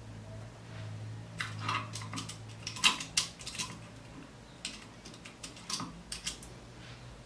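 Hands handling and arranging fabric on a tabletop: rustles and small sharp clicks in two clusters, the loudest click about three seconds in, over a low steady hum.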